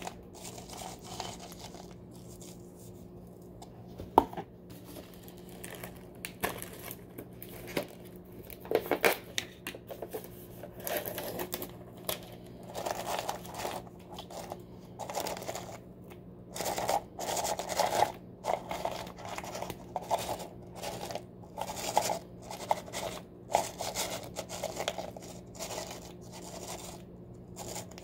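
Mini Nilla wafer cookies rustling and clattering in a plastic tub as a hand scoops them out and lays them on the pudding, in irregular short bursts, with one sharp click about four seconds in. A faint steady hum runs underneath.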